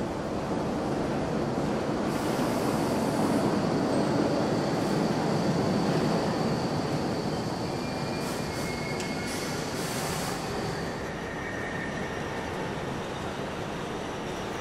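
Subway train running through the station: a low rumble that swells about two seconds in and eases after about seven, with a thin, steady high wheel squeal through the middle and a few short squeals of different pitch near the end.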